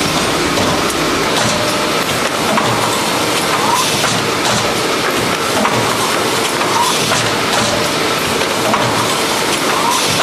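COMBI-ESTRO automatic folding-gluing machine running at production speed: a steady mechanical clatter with short clicks recurring every second or so.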